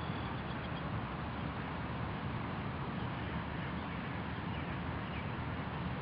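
Steady outdoor background noise, mostly a low rumble, with a few faint bird chirps near the start.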